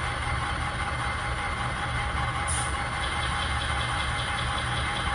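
Diesel locomotive engine idling steadily, a constant low throb.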